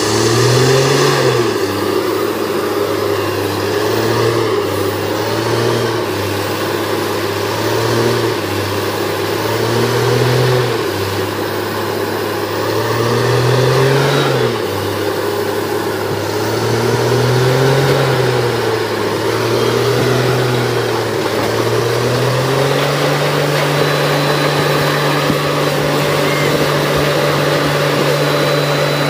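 Heavy diesel engine of a truck-mounted borewell drilling rig running under load, its speed rising and falling about every three and a half seconds, then holding steady at a higher speed for the last several seconds.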